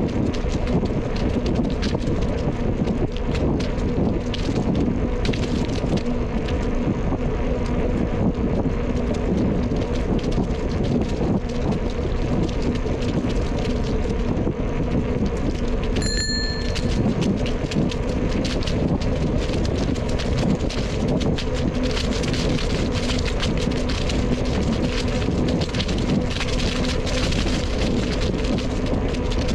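Bicycle riding along a trail: steady tyre rolling noise mixed with wind on the microphone, with a faint steady hum. A short high chirp about halfway through.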